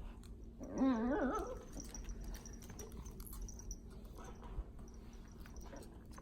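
Dachshund puppy giving one short, warbling whine about a second in, its pitch wobbling up and down: a contented, happy vocalisation. Faint scratching and rustling follow.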